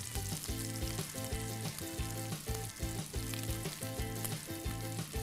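Pan of fried neck meat still sizzling off the heat as the pieces are lifted out with tongs, over background music with a steady beat.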